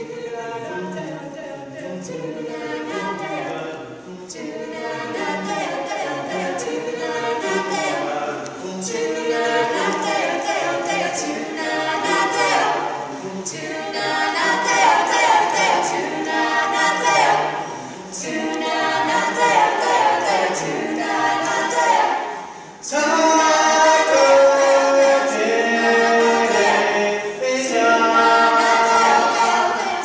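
Four voices singing wordless a cappella harmony. After a brief break about 23 seconds in, the singing comes back louder.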